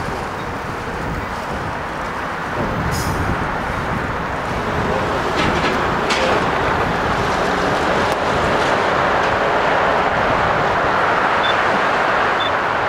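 Autorack freight train rolling past, a steady rumble of wheels on rail that grows a little louder a few seconds in, with a few short, sharp clicks or squeaks about three and six seconds in.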